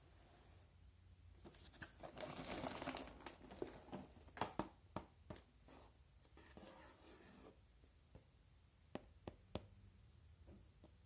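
Quiet handling of product packaging being opened: a rustle of paper or plastic tearing, then a run of sharp clicks and small knocks, a second shorter rustle, and three clicks near the end.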